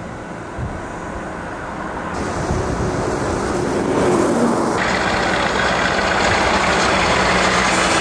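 Outdoor background noise that changes abruptly at cuts between shots. From about five seconds in, a tractor engine runs steadily, growing louder as the tractor approaches.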